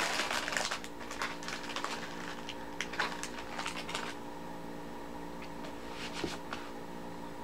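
Plastic wrapper of a Peeps marshmallow candy crinkling and rustling as it is opened by hand, in short irregular crackles over the first four seconds, then a faint steady room hum.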